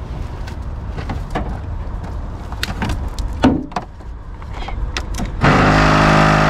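Jump-box clamps and cables clicking and rattling as they are fitted to a car battery, with one louder knock about three and a half seconds in. Near the end a loud, steady, pitched whirring hum starts abruptly.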